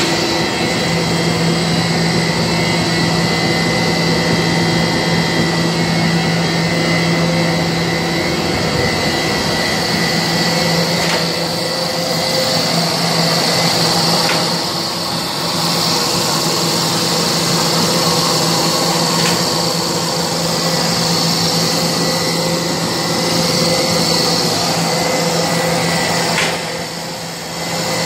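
DG95 twin-screw corn puff snack extruder line running: a loud, steady machine hum with a constant higher whine and an airy hiss, dipping briefly near the end.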